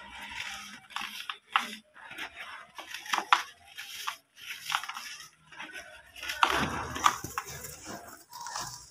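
Bare hands crumbling and crushing dry, dusty yellow brick-dirt clumps in a metal tub: irregular gritty crunches and crackles. A louder, denser crunch comes a little past halfway as a larger lump breaks up.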